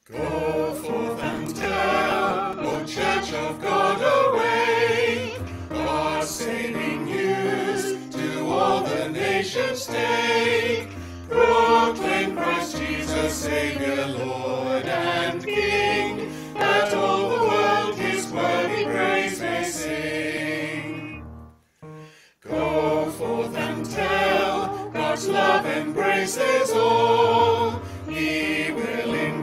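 A choir singing a hymn. The singing breaks off briefly about 22 seconds in, between lines or verses, then resumes.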